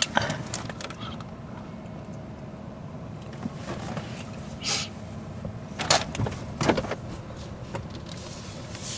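Steady low hum inside a car's cabin, with a few short breathy puffs about halfway through: a man breathing out over his tongue, burning from spicy Takis Fuego chips.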